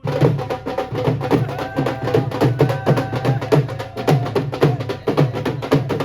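Dhol drumming in a fast, driving rhythm: sharp cracking strokes come several times a second over a heavy bass beat about twice a second, with a faint held melody above.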